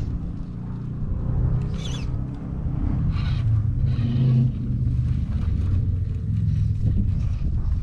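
RC rock crawler's 550 Axe motor and geared drivetrain whining at crawling speed, the pitch shifting as the throttle is worked, with a few short scrapes of tires on rock.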